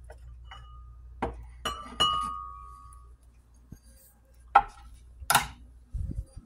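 Glass and other kitchen items handled on a counter: a string of sharp knocks and clinks, one of which rings on for about a second, then a dull thump near the end.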